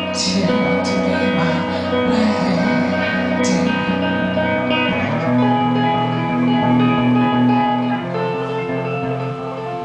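Red semi-hollow-body electric guitar playing an instrumental passage of strummed chords that ring on, with a few strokes in the first half and a change to a lower held chord about five seconds in.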